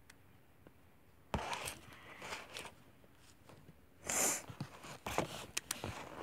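Handling noise from a Baby Alive doll being moved right by the microphone: a thump and rustling scrapes starting about a second in, a loud rustle about four seconds in, then a few sharp knocks.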